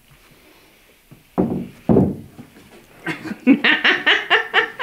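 Laughter in short, rapidly repeated bursts through the second half, after two short loud sounds about one and a half and two seconds in as a man squeezes out of a very low kit car.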